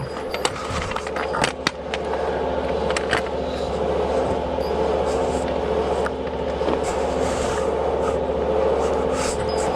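Machine engine running steadily, with a few sharp clicks and knocks in the first couple of seconds.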